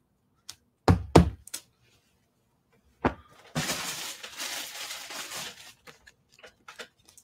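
Two dull thumps about a second in, a hand patting down on a plastic-wrapped leggings package as a number sticker is pressed on. About three and a half seconds in, a couple of seconds of plastic packaging crinkling follow.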